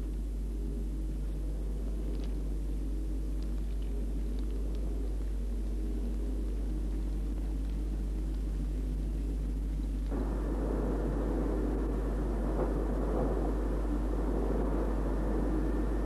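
Film soundtrack: a steady low mechanical hum with a few faint clicks. About ten seconds in it switches suddenly to a louder, steady rushing noise.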